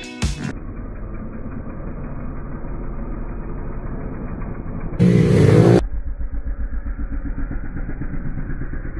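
Pit bike engines running at low revs with a steady, pulsing sound. About five seconds in, an engine is revved hard for under a second, rising in pitch.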